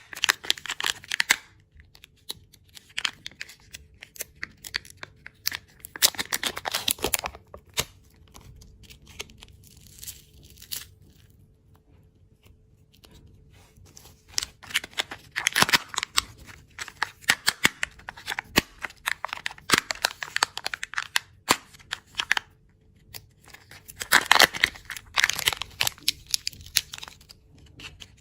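Candy packaging being opened by hand: wrappers tearing and crinkling in bursts of dense crackling and clicks, with quieter handling between them.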